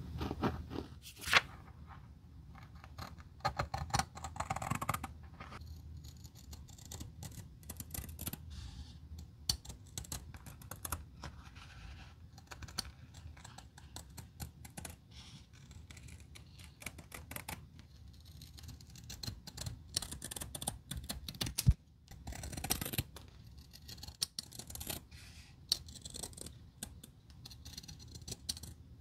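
A pencil scratching as it traces a template onto a ribbed sheet, then large steel shears snipping and crunching through the thick sheet, with the blades scraping and a few sharp clicks.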